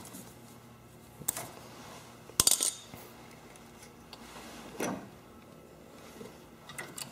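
A few sharp metallic clicks and clinks of side cutters and hand tools at a rubber fuel line being cut off a small-engine carburetor. The loudest clink comes about two and a half seconds in, with a softer one near five seconds and small ticks near the end.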